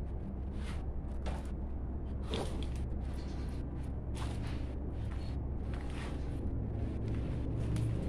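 Scattered light clicks and scrapes of hand work on a motorcycle's front end, a few times a second apart, over a steady low hum.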